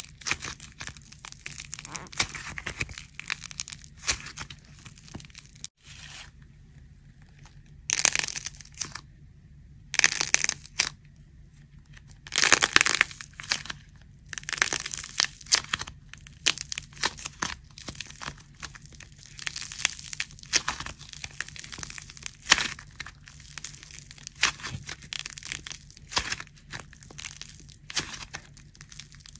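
Dried plaster clay being squeezed and torn apart by hand: a long run of dense crackling and tearing, with louder clusters of cracks about eight, ten and thirteen seconds in and brief quieter pauses between them.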